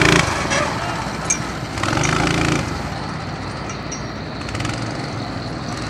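Small single-cylinder four-stroke Honda GX-clone engine of an off-road buggy revving. It is loud at the start and again about two seconds in, then runs fainter.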